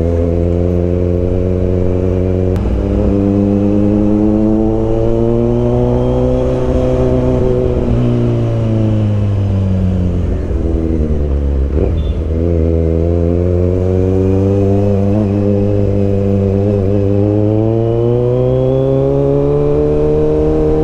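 Kawasaki Z900's inline-four engine running under way, ear-splittingly loud. Its pitch climbs for the first several seconds, drops back around the middle, then rises steadily again through the rest.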